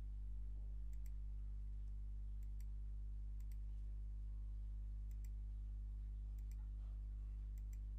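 Computer mouse clicking, each click a quick press-and-release pair, about six times through the few seconds, over a steady low hum.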